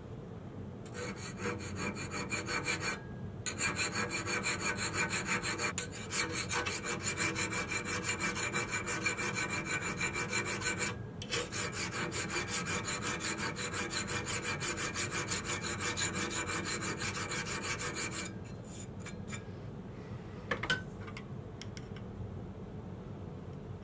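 A flat hand file rasps in quick, even back-and-forth strokes across a flush rivet set in a rusty metal plate in a vise, filing it smooth with the surface. It pauses briefly twice and stops about 18 seconds in, followed by a single light knock.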